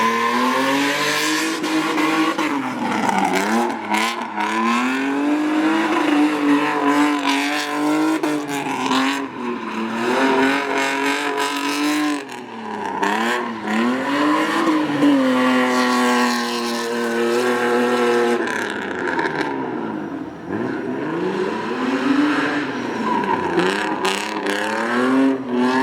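BMW E30 drift car's engine revving hard, its pitch climbing and dropping again and again under throttle, with tyres squealing as the car slides.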